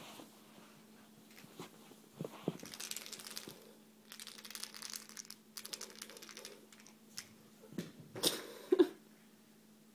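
Rattle-filled toy mouse being shaken in short bursts of fast rattling, then a louder clatter near the end as it is thrown.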